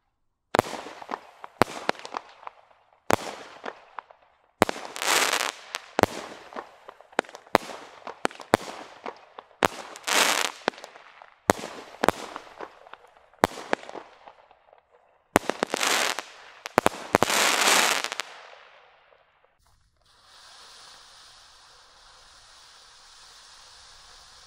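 A small multi-shot aerial firework cake firing a rapid series of shots, about one or two a second, each followed by a crackling, fading burst of stars. After a brief pause, near the end, a firework fountain starts and gives a steady hiss as it sprays sparks.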